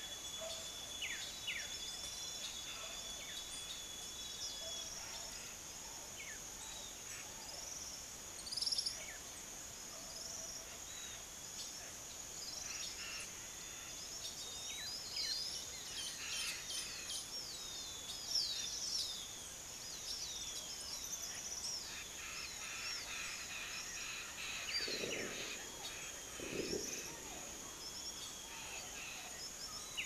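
Outdoor evening ambience: a steady high insect drone with many birds chirping and calling over it, and two lower calls near the end.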